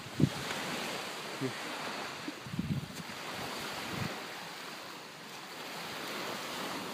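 Lake Erie waves washing onto a beach, with wind on the microphone. There are a few soft low thumps in the first four seconds.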